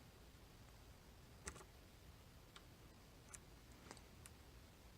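Faint, scattered clicks of a pick and tension wrench working the pins of a 5-pin dimple lock core, about five small clicks over a few seconds.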